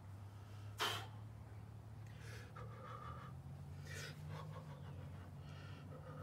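A man breathing hard with exertion as he strains to bend nails by hand: one sharp, loud breath about a second in, then repeated shorter huffing, strained breaths.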